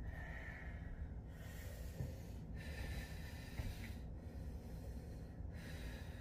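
A woman breathing with effort as she pushes up into and holds a side plank: a run of long breaths in and out, each about a second or so, with short pauses between them.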